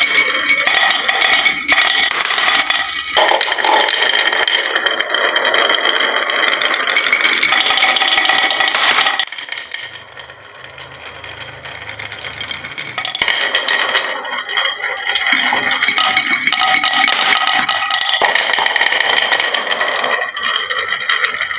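Many marbles clattering and rattling down a HABA wooden marble-run slope and dropping into toy trucks, a dense continuous rattle. It thins out and goes quieter about nine seconds in, then builds back up a few seconds later.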